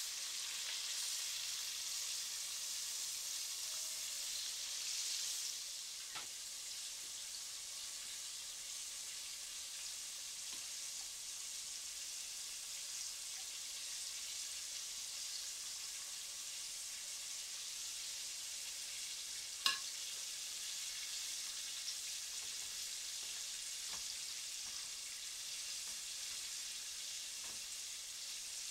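Chicken strips deep-frying in hot vegetable oil in a cast-iron Dutch oven: a steady sizzle, a little louder for the first five or six seconds. There is one sharp click about twenty seconds in.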